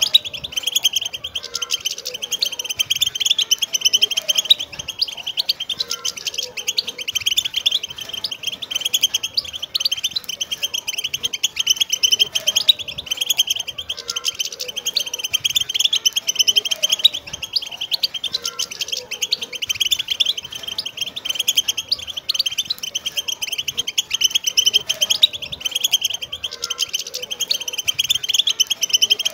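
A group of wild European goldfinches singing together: a dense, unbroken run of rapid, high twittering notes.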